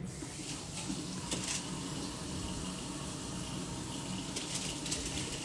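Kitchen tap running in a steady stream, with a few light clicks and knocks.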